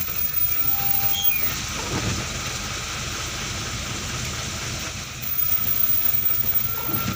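Steady engine rumble of a large vehicle inching along in heavy traffic, heard from inside the cab, under a constant hiss of rain and wet road. It swells slightly twice, just after the start and again about five seconds in.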